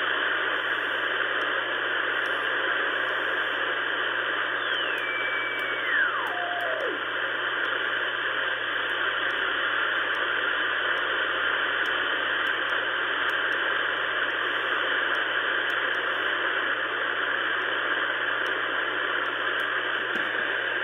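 Ten-Tec Pegasus shortwave transceiver's receive audio: steady band-noise hiss in upper sideband as it is tuned across the 20-metre amateur band. About five seconds in, a carrier's whistle slides down in pitch as the tuning passes it.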